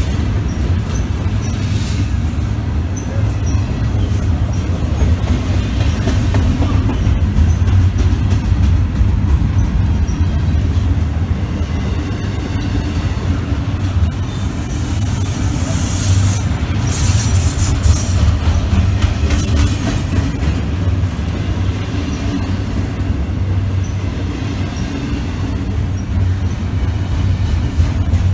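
BNSF double-stack intermodal train's loaded well cars rolling past close by: a steady low rumble of steel wheels on rail, with brief bursts of high-pitched noise about halfway through.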